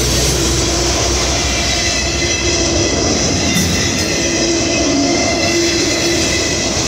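CSX freight train rolling past, a steady, loud rumble and rattle of the train on the track.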